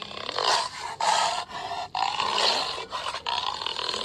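A dog making raspy, roar-like growls, a run of short noisy bursts about half a second each with brief breaks between them.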